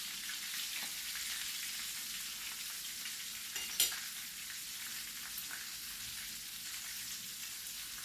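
Chicken pieces frying in hot oil: a steady sizzle, with one sharp click about four seconds in.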